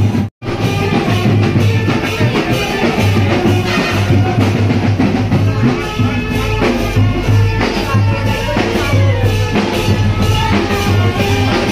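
Music: a song with singing over drums and a pulsing bass beat. It drops out completely for a split second just after the start, then runs on.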